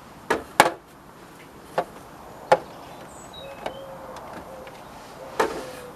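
A series of sharp clicks and knocks, about seven spread over several seconds, from the plastic parts of a bird feeder being handled and fitted together during assembly.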